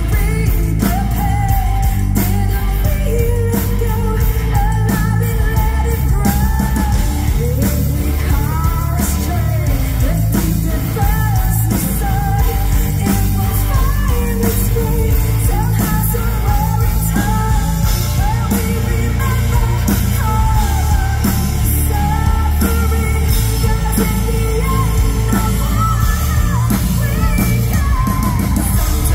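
Live symphonic metal band playing: a female lead voice sings over drums, bass and electric guitars, loud, with a heavy, booming low end.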